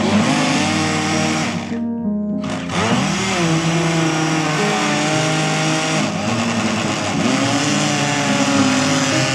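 Electric countertop blender motor running, chopping fruit chunks in milk. It cuts off for about half a second around two seconds in, then starts again and keeps running.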